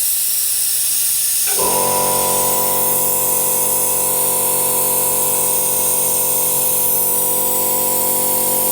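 Vacuum brake bleeder hissing steadily as it draws brake fluid out through the opened bleed nipple. About a second and a half in, a steady hum joins it and holds.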